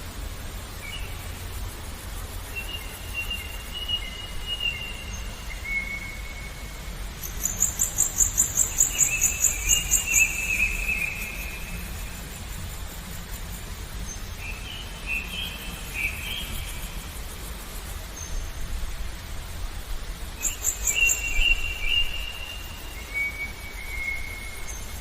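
Songbirds singing short whistled phrases again and again, with a rapid, high, pulsing trill twice, over a steady low murmur of running water.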